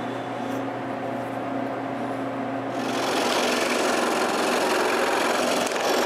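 Craftsman scroll saw running with a steady motor hum; about three seconds in its blade starts cutting a small block of wood, adding a dense rasping hiss that continues.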